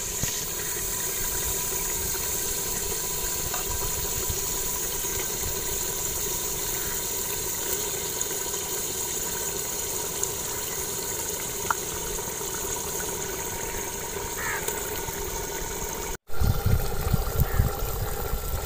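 Chicken pieces and spice masala frying in oil in a clay pot, a steady sizzling hiss. After a cut near the end, louder irregular low knocking and rumbling come in as a wooden spoon works the chicken in the pot.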